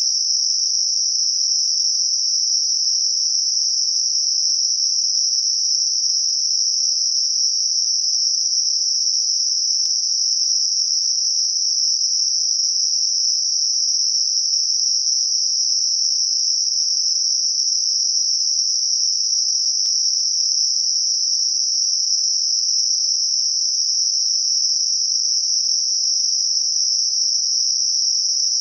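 Synthetic Gaussian narrow-band noise centred on 5.5 kHz, a steady high-pitched hiss with no change in level, used as a masker for high-frequency tinnitus.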